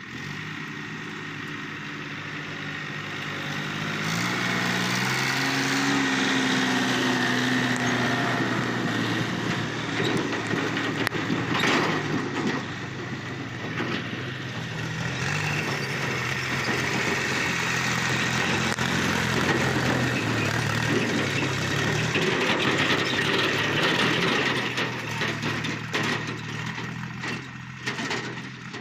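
Diesel tractor engine running steadily under load, hauling a loaded trolley of earth. It revs up about four to six seconds in.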